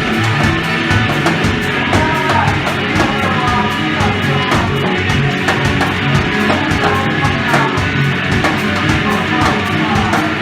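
Rock band playing live, loud and dense, with a steady drum beat under gliding melodic lines.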